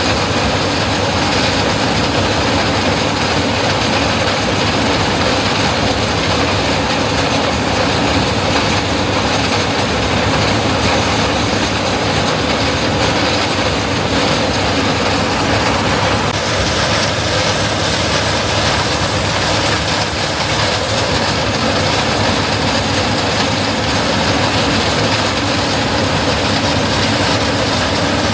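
Claas Lexion 750 combine harvesting corn: a loud, steady mechanical clatter of the machine running under load. Its tone shifts slightly about two-thirds of the way through.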